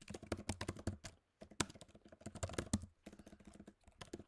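Typing on a computer keyboard: quick runs of key clicks with a couple of short pauses.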